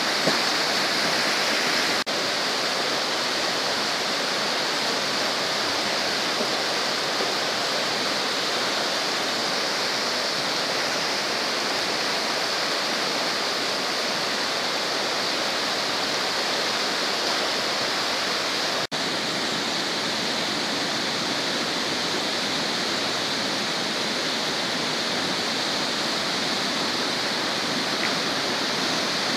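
Floodwater of a swollen river rushing through fast, churning rapids: a loud, steady rushing noise. It breaks off for an instant twice.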